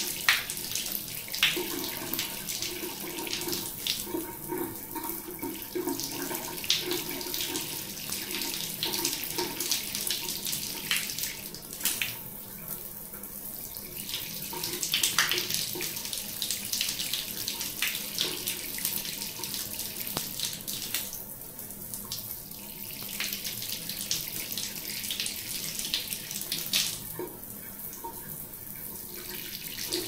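Shower water running steadily and splashing onto a hand and a tiled floor, with uneven spatters throughout.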